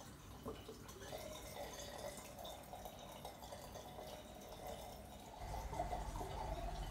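Faint trickling and dripping of water in an aquaponic aquarium, with small scattered ticks. About five seconds in, a steady low hum comes in under it.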